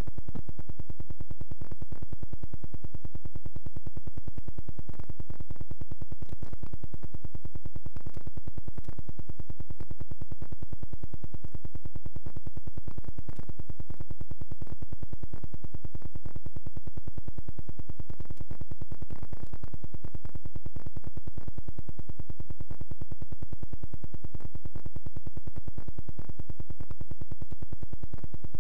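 Steady electrical buzz with a constant low hum from a video deck's audio line during playback of a blank, unrecorded stretch of tape.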